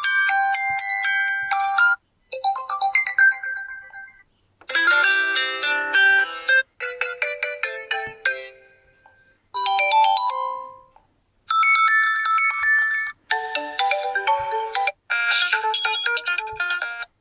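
Meizu M5s default alarm tones played back one after another: several short electronic melodies, each lasting about two seconds and cut off suddenly before the next one starts.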